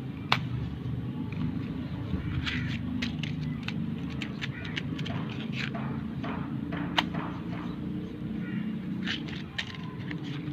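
Firecrackers popping: scattered sharp bangs, several close together at times, with two louder cracks about a third of a second in and about seven seconds in, over a steady low rumble.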